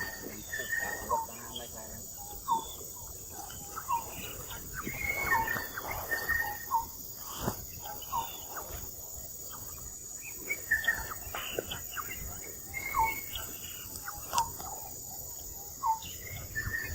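Outdoor ambience: a steady high insect drone, with short chirping calls repeating about once a second and a few scattered clicks and knocks.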